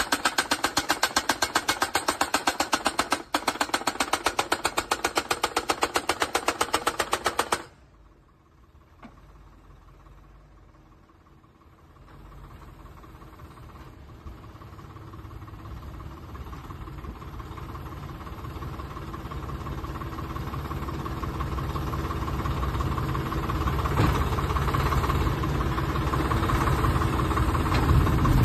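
Tractor-mounted hydraulic post-driving hammer pounding a steel crash-barrier post into the ground, rapid even blows about five a second, stopping abruptly about seven and a half seconds in. After a short lull the tractor engine and hydraulics run on, growing steadily louder to the end.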